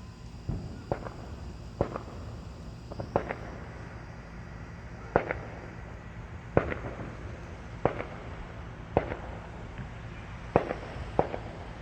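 Distant Fourth of July fireworks going off: about a dozen sharp bangs, irregularly spaced a second or so apart, each with a short echo.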